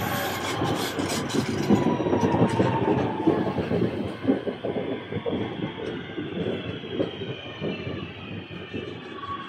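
Northern Class 323 electric multiple unit passing close along the platform: the wheels clatter over the rail joints, and the motor whine falls slowly in pitch as the train goes by.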